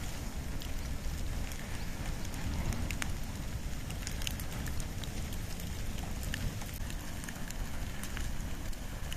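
Campfire of burning wood and bamboo crackling, with scattered sharp pops over a steady low rumble.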